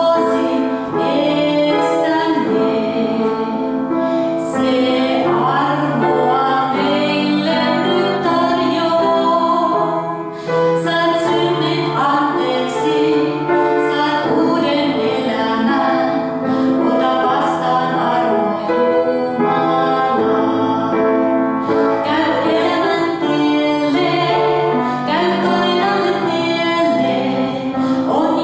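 A woman singing a Finnish spiritual song solo over instrumental accompaniment, with sustained notes beneath the voice.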